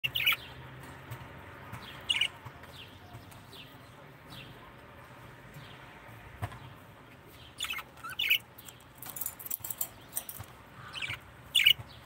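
Pet budgerigars chirping: short, sharp calls that drop in pitch, loudest at the start, about two seconds in, around eight seconds in and near the end, with softer chirps between. A patch of faint, high scratchy clicks comes around nine seconds.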